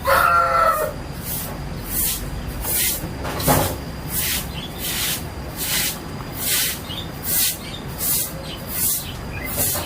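A rooster's crow ending just after the start, then a sick chicken's breathy, hissing breaths at an even pace of a little more than one a second: the snoring breathing (ngorok) of a chicken with a chronic respiratory infection. A single dull knock about three and a half seconds in.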